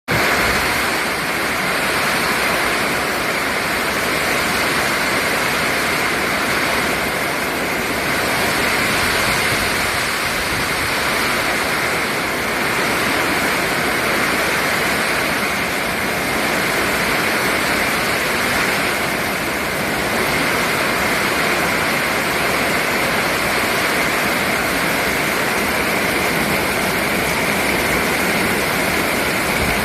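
Storm noise: a loud, steady rush of rain and wind that swells and eases slightly.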